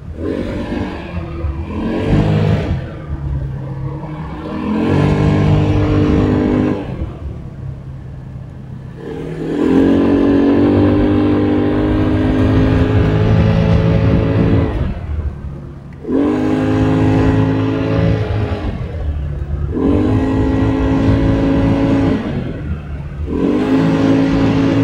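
Car engine being driven, pulling up through the revs and easing off several times over, as on a winding road.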